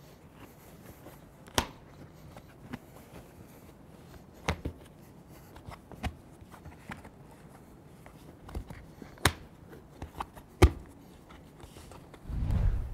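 Hands working a vinyl soft top's fabric and plastic retainer strips, with scattered sharp clicks and taps every second or two and a low dull thump near the end.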